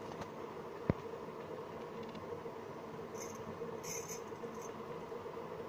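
Bangles on a wrist chinking lightly as the arm moves, a few short chinks about three to four seconds in, with one sharp click about a second in, over a steady background hiss and hum.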